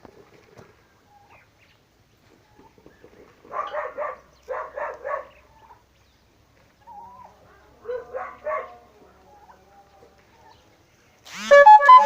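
Three short runs of animal calls, each of three or four quick notes, during a scuffle between a turkey hen and a dog. Loud music starts abruptly about a second before the end.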